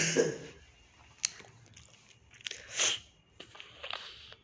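A man's mouth noises and breathing between read-aloud sentences: soft lip and tongue clicks, with a breathy sound at the start and a sharper in-breath near three seconds in.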